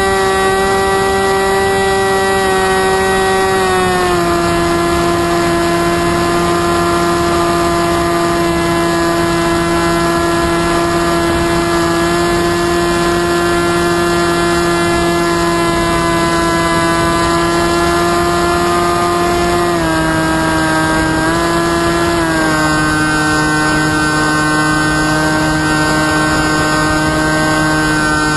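Model flying wing's motor and propeller heard from on board: a loud, steady buzzing drone with a clear pitch. The pitch drops slightly about four seconds in and twice more later, as the motor speed is eased back.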